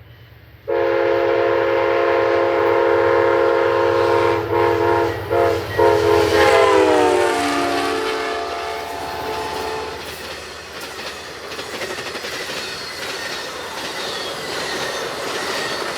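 Nathan K5LA five-chime air horn on Amtrak locomotive 98 blown as a long chord with a few short breaks, its pitch dropping as the locomotive passes about six seconds in. The horn stops about ten seconds in, leaving the rumble and clickety-clack of the passenger cars rolling by.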